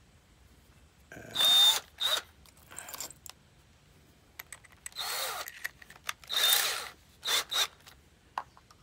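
Power drill run in about half a dozen short trigger pulls, its motor whining up in pitch and winding down again with each burst.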